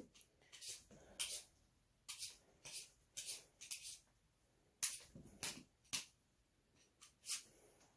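Hand vegetable peeler scraping the skin off a potato in short, faint strokes, about one or two a second.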